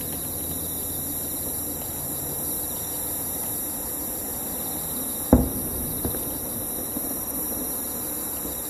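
A distant aerial firework shell bursting with one sharp boom about five seconds in, followed by a couple of much fainter pops, over insects chirring steadily throughout.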